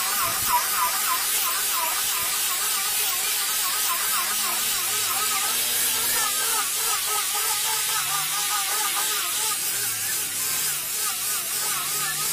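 Electric angle grinder with a round polishing pad, running steadily as it buffs finish into a wooden tabletop. A motor whine wavers with the load, over the hiss of the pad rubbing the wood.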